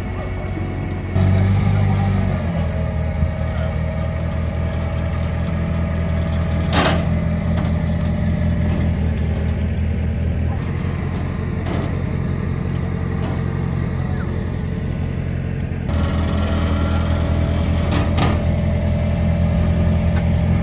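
Forklift engine idling steadily, stepping up in level about a second in and again about five seconds before the end, with a couple of short sharp knocks.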